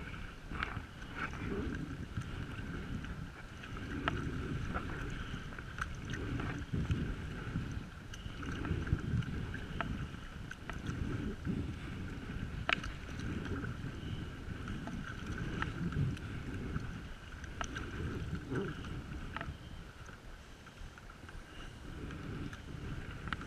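Sea kayak being paddled: the blades dip and pull through the water in a steady alternating rhythm, swelling about once a second or so, with water splashing against the hull and a low wind rumble on the microphone. Occasional sharp ticks of dripping water or the paddle knocking.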